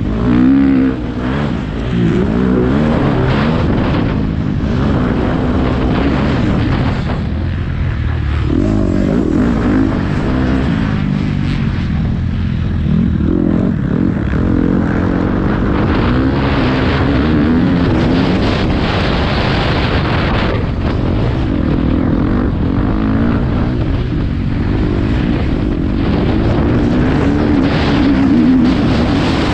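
Motocross bike engines revving up and down over and over as the bikes race, the pitch climbing and dropping with each gear change and throttle.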